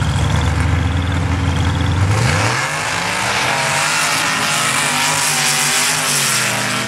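Two custom V8 off-road trucks, one a 1976 Ford Bronco with a 393, drone loudly on the start line, then launch about two seconds in at full throttle. Engine pitch climbs and then holds high over the hiss of tyres spraying sand and dirt down the drag strip.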